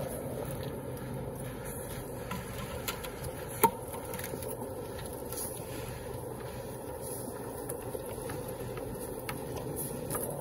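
A petrol-engine concrete mixer running steadily, with a single sharp knock a little over a third of the way in.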